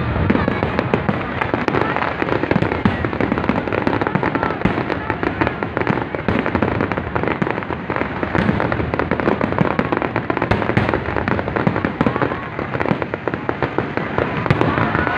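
Fireworks display: a continuous barrage of aerial shells bursting, with rapid, overlapping bangs and crackling that never pause.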